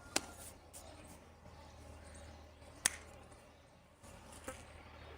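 Three sharp clicks or taps, roughly a second and a half to two and a half seconds apart, with a fainter one early on, over a low steady hum.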